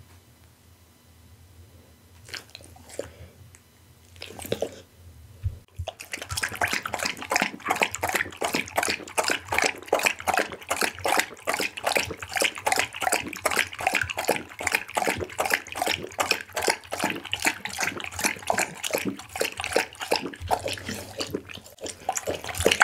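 A pit bull lapping liquid from a glass bowl close to the microphone, in fast, even wet laps of about four a second. The lapping starts about six seconds in.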